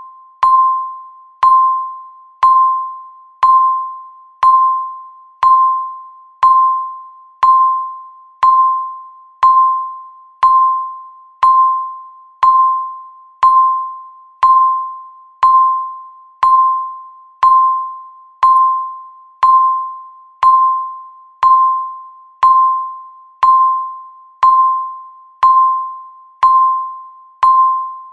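Countdown timer's electronic beep marking each second: a short ping at one fixed pitch, struck about once a second and fading quickly each time.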